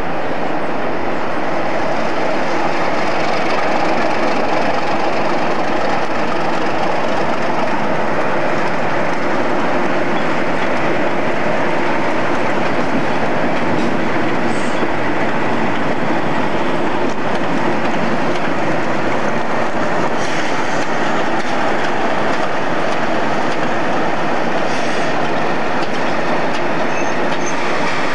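British Rail class 37 diesel locomotives passing under power, their English Electric V12 engines running with a steady, loud sound mixed with the noise of wheels on the track.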